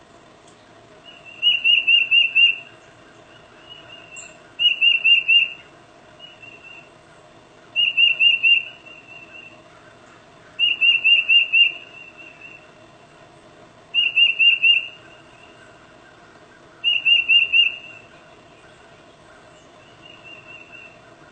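Tufted titmouse singing its whistled peter-peter song: six loud phrases of four or five quick repeated notes, about three seconds apart, with softer notes in between.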